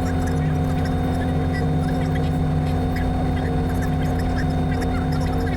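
Robinson R44 Raven I helicopter running steadily on the ground after landing: an even drone from its six-cylinder piston engine and rotors, with no change in pitch or level.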